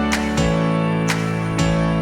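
Background music: acoustic guitar strumming chords, a new strum roughly every half second to second.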